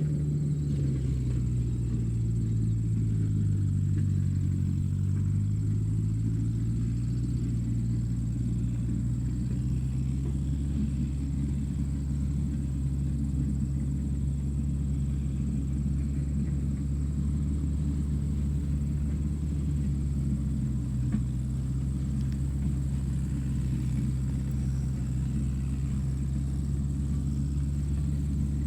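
Tractor engine running steadily with a low rumble; its note drops and settles over the first few seconds, then holds even.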